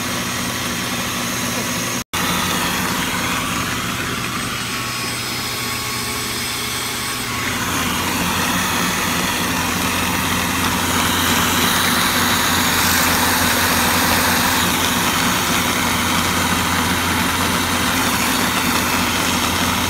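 Shop vac running steadily, pulling air through a PVC T adapter around a drill-press case trimmer, with a steady motor hum underneath. The sound cuts out for an instant about two seconds in. The air rush grows louder from about seven seconds in.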